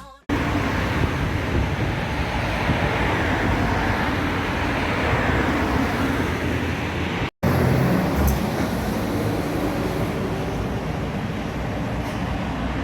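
Steady road traffic noise, briefly cutting out to silence about seven seconds in.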